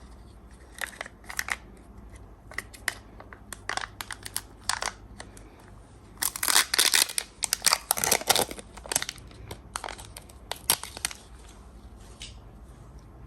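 Kinder egg's foil and plastic wrapper being crinkled and torn open by hand, a run of short crackles that is loudest and densest a little past the middle.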